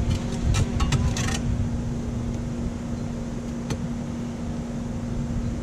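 Shovel blade driven into overgrown sod at a driveway edge: a few sharp scrapes and knocks in the first second and a half and one more click later, over a steady low hum.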